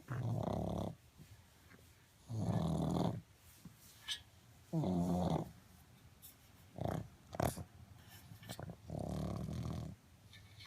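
Pug snoring in its sleep: four long snores, one about every two to three seconds, with two brief sharper sounds between the third and fourth.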